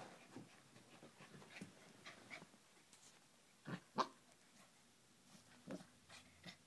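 Corgi puppy giving a few short barks: two close together about four seconds in, the second the loudest, and another near six seconds, with quiet between them.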